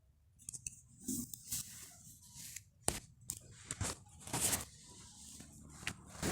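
Irregular crackles, rustles and a few sharp clicks from crispy fried snacks being handled and eaten.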